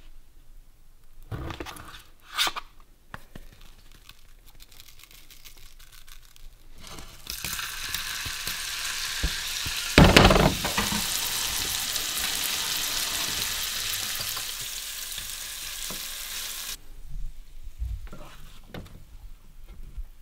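Pieces of pheasant breast sizzling in melted butter in a frying pan. The sizzle comes in loud about a third of the way in and flares with a heavy hit around the middle as more meat goes into the pan, then stops abruptly. A few light knocks follow as the pieces are stirred with a wooden spoon.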